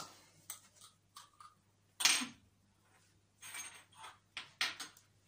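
Small makeup cases, tubes and caps clicking and clattering as they are picked up, opened and set down on a table, with one louder knock about two seconds in.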